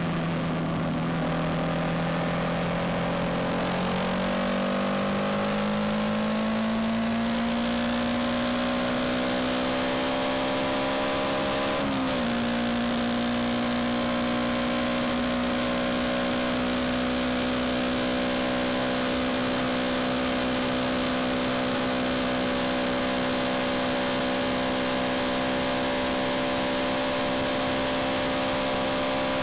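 Yamaha MT-125's single-cylinder four-stroke engine pulling and rising steadily in pitch, a brief dip about twelve seconds in, then holding a steady cruise, with constant wind rush.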